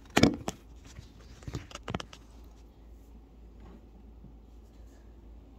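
A few knocks and bumps of things being handled on a wooden tabletop, the loudest about a quarter second in and two smaller ones around two seconds in, then quiet room tone.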